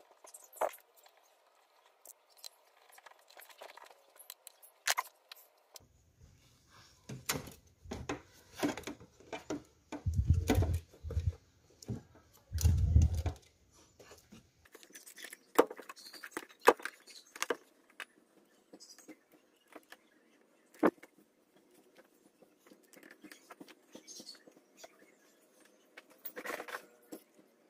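Hands fitting the parts of an aftermarket cold air intake into a car's engine bay: scattered clicks, knocks and scrapes of plastic and metal, with metallic rattles, and a few heavier dull thumps between about 7 and 13 seconds in.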